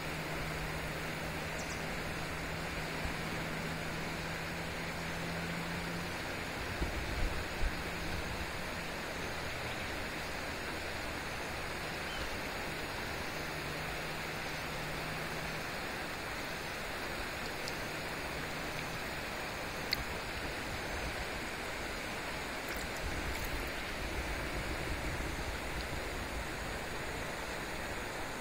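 Steady, even rushing of a river running high.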